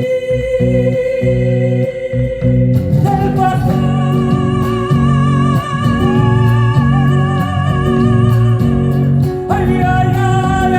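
A live band playing, with guitars and steady low sustained notes underneath; about three seconds in, a voice comes in singing long held notes with vibrato, jumping up in pitch near the end.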